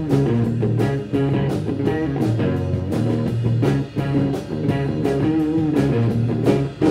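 A rock band playing an instrumental passage of a song live: guitar over a steady beat, with no singing.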